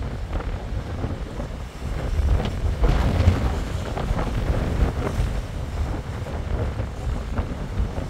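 Strong gusting wind buffeting the microphone: a low rumble that swells and falls, loudest about three seconds in, over the rushing of wind-driven choppy water.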